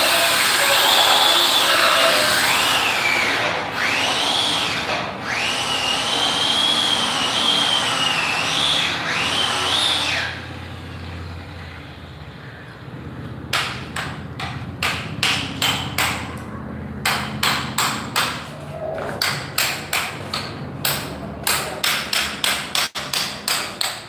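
Handheld angle grinder grinding the edge of a stone stair tread, its high whine wavering as the disc bites. It stops about ten seconds in, and a few seconds later a string of sharp knocks follows, roughly two a second.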